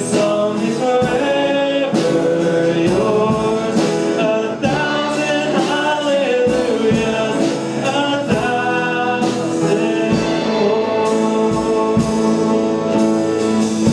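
Live gospel worship music: singers with a band, acoustic guitar strumming, holding out sung lines of a praise song.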